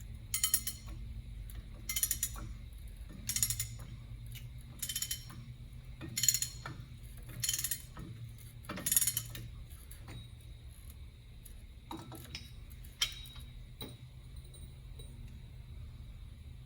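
Ratchet wrench clicking in short strokes, about one every second and a half, seven times, then two fainter strokes a few seconds later, as a nut on a truck's front wheel hub is run down.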